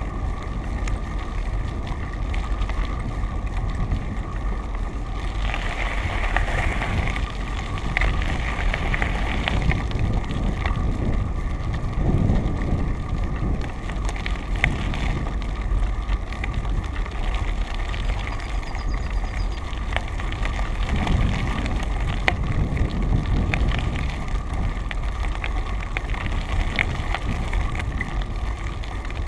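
Steady wind buffeting on the microphone and road noise from a vehicle travelling along a rough asphalt road, with a steady thin hum and scattered clicks and rattles.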